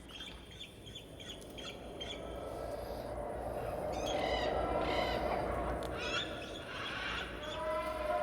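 Wild birds calling in the dark: many short chirps and squawks, with a lower, drawn-out cry that bends in pitch near the end.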